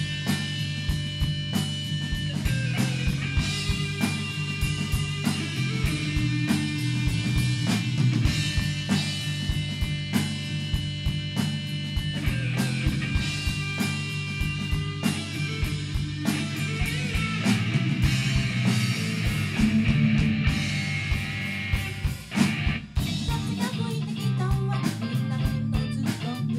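Live rock band playing: drum kit keeping a steady beat under electric bass and electric guitar, with a short break about three-quarters of the way through.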